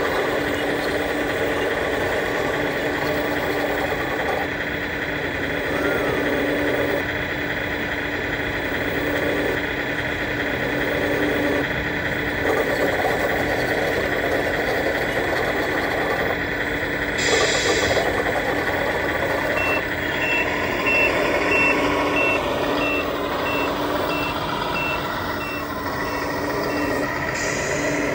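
Reversing alarm beeping at a steady, even pace over a running engine, starting about two-thirds of the way in. There are two short hisses, one just before the beeping and one near the end.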